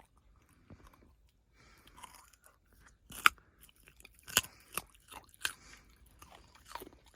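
Puppy chewing a raw carrot: crisp, irregular crunches, the loudest about three seconds in and several more in the second half.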